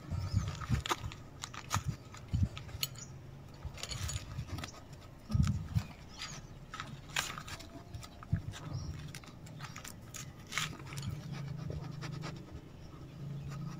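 A Garut fighting ram moving about on a lead over bare dirt: scattered, irregular scuffs and knocks of its hooves, with one heavier thump about five seconds in. A low steady hum runs underneath, stronger in the second half.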